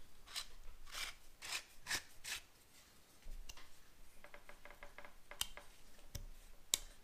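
Vintage all-metal chrome flashlight being twisted apart by hand: its head scrapes on the metal threads in short strokes, then a quick run of fine ticks as the threads turn, with a few sharp clicks near the end.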